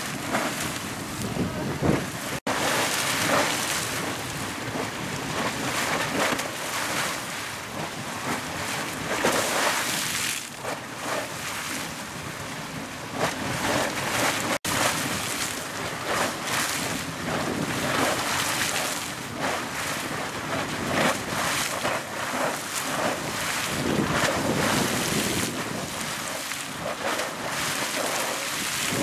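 Super Frying Pan Geyser, a fountain-type geyser, erupting: hot water bursting and splashing out of its vent in irregular surges over a steady rushing hiss. The sound drops out for an instant twice.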